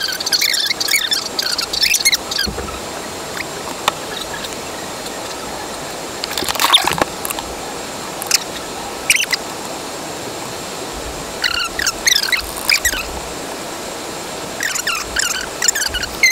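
A voice played in fast-forward: squeaky, chipmunk-like chatter in short bursts with gaps of steady hiss between.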